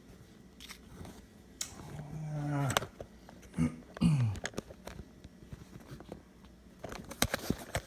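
A phone being handled and repositioned up close to its microphone: scattered knocks and clicks, with a dense run of handling clicks near the end. A man makes a few short wordless grunts or hums a couple of seconds in.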